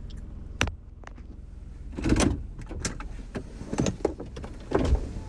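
Car idling, heard from inside the cabin as a steady low rumble. A sharp click comes a little after half a second in, then several short, loud knocks and rustles from about two seconds on, the loudest near two and five seconds.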